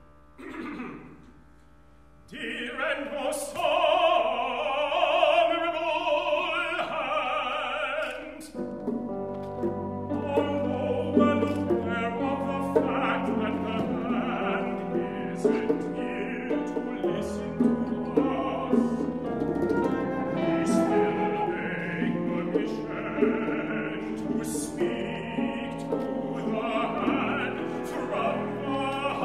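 Operatic singing from the chamber opera, at first carried mostly by the voice, then from about eight seconds in joined by a full chamber ensemble of strings and piano playing sustained notes with sharp accents.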